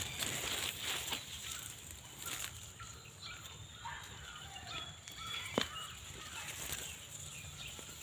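Birds chirping and calling in short, scattered notes over a steady high hiss, with one sharp click about five and a half seconds in.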